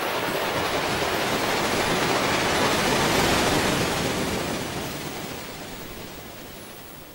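A rushing noise with no pitch or rhythm that swells to its loudest about three seconds in and then fades away.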